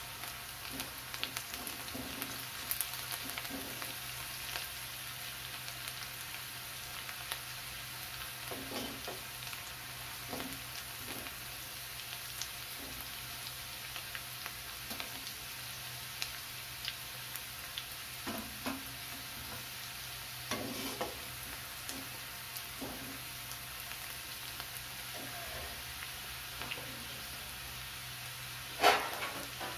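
Chopped onion, ginger, garlic and green chilli sizzling steadily in hot oil in a metal kadai as they brown, with scattered light taps of a metal slotted spoon stirring them and one louder knock near the end.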